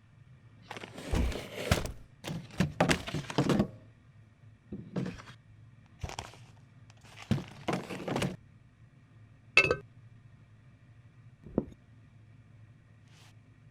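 Kitchen handling sounds while making tea: a run of scraping and rustling strokes over the first few seconds, a few more later, then a short ringing clink about two-thirds of the way in and a dull thunk near the end.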